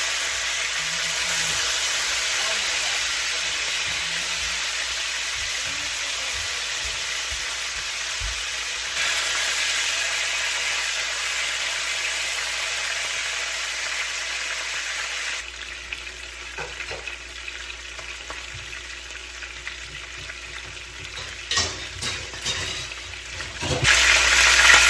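Beef steak sizzling in a hot frying pan, a steady hiss. It turns quieter about two-thirds of the way through, with a few light knocks, then sizzles loudly again near the end.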